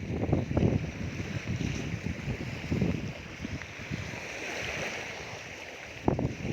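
Wind buffeting the phone's microphone in irregular gusts, over the steady hiss of surf washing on the beach.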